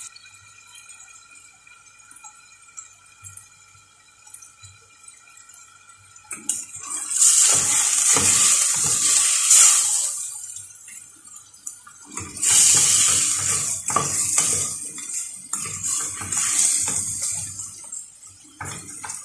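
Chicken pieces sizzling in a hot stainless steel pot while a spatula stirs and scrapes them, with knocks against the pot. The sizzle comes in two loud spells, the first about six seconds in and the second about twelve seconds in.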